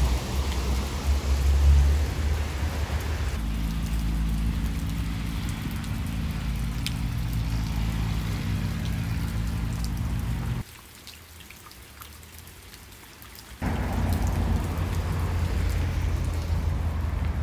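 Steady rushing of a shallow rocky stream, mixed with wind rumbling on the phone microphone. About ten seconds in the noise drops away abruptly for some three seconds, then returns.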